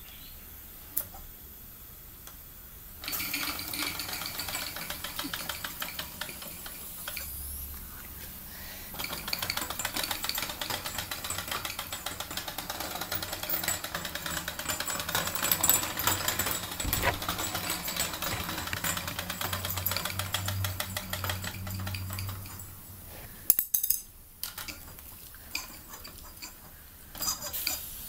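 Mamod TE1A miniature steam traction engine running, its single oscillating cylinder giving a fast, even chuffing with a light metallic rattle. The running starts about three seconds in, eases briefly, and near the end gives way to a few sharp clicks and a quieter spell.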